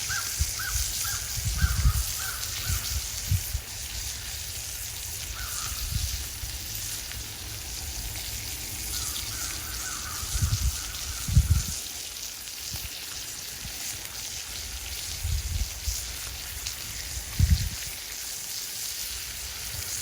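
Burger patties sizzling over a campfire, a steady hiss with fire crackle. A bird calls in short rapid runs near the start and again around the middle. A few louder low thumps stand out.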